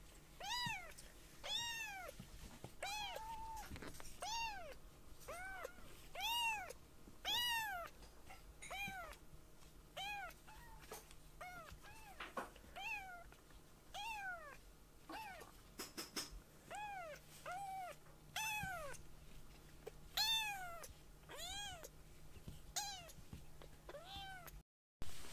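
A young kitten meowing over and over, about one high-pitched meow a second, each call rising and then falling in pitch.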